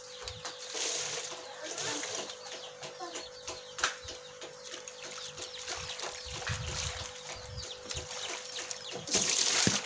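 Chickens clucking and chicks cheeping, many short high calls. A loud rush of noise comes about nine seconds in.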